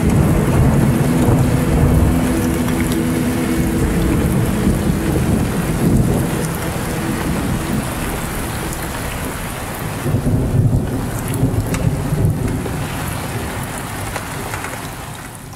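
Heavy rain with rolling thunder, a recorded storm ambience ending an atmospheric black metal intro; the low rumble swells several times, then fades near the end and cuts off.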